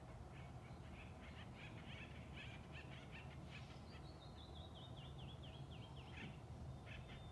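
Faint forest birdsong: a bird chirps and chatters for a few seconds, then sings a run of quick downslurred notes that step lower in pitch, with a couple more notes near the end.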